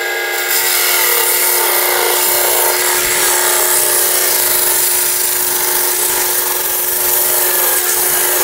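Gryphon C-40 diamond band saw running with a steady motor hum while its diamond blade grinds through a piece of coral, with a harsh, hissing grind over the hum. The grinding gets louder about half a second in as the coral is pushed into the blade.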